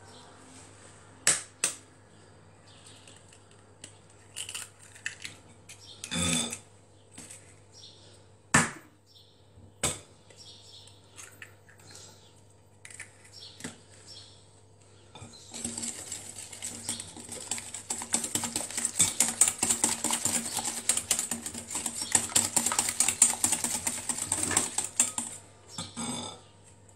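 A wire whisk beating egg yolks and sugar in a glass bowl: a fast, continuous clatter of the wires against the glass lasting about ten seconds, from about halfway in. Before it come a few scattered knocks and clinks from handling things in and around the bowl.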